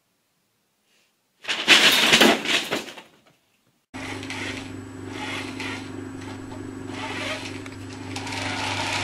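A loud crackling rustle of a paper bag lasting about a second and a half, then a steady low hum with a light hiss that grows slowly louder toward the end.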